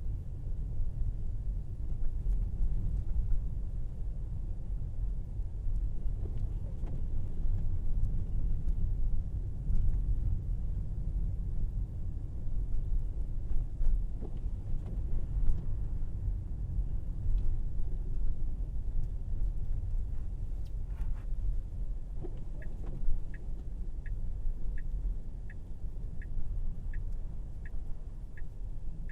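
Low, steady road and tyre rumble of a Tesla Model Y electric car driving on a snowy road. Past the two-thirds mark a regular ticking begins, about three ticks every two seconds: the turn signal.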